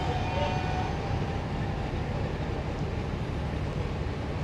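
NSW 80 class diesel-electric locomotive's Alco V12 engine idling steadily with the train standing still, a low, even rumble.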